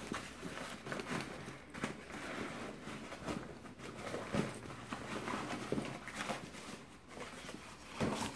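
Rustling, crinkling and irregular soft knocks of a sewn tote bag being handled as its lining is pulled up through the open zippered pocket: vinyl, cork fabric and lining fabric rubbing against each other.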